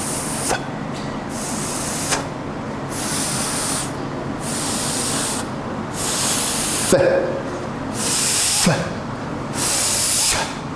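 A man demonstrating the letter F sound by pushing out a breathy, hissing "fff" again and again, about seven times. Each "fff" lasts under a second.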